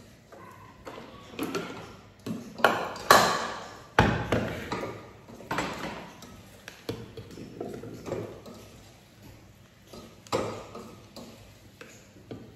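Kitchenware clattering: a stainless steel Thermomix mixing bowl being lifted out and set down with its plastic accessory, and a utensil stirring in a steel pot. Irregular knocks and ringing metallic pings, the loudest about three to four seconds in.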